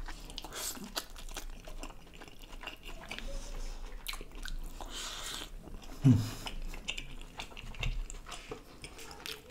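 Close-miked biting and chewing of a soft chicken momo, with many small wet mouth clicks. A short hum of appreciation falls in pitch about six seconds in.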